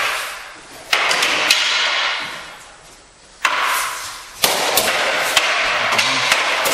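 Wooden practice swords clacking together in sparring: a string of sharp strikes, spaced out at first and then a quick flurry in the second half, each ringing on in an echoing hall.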